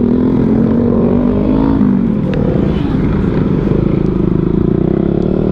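Motorcycle engine running under way, with wind rumble on the microphone. The engine note dips about two seconds in and then holds steady.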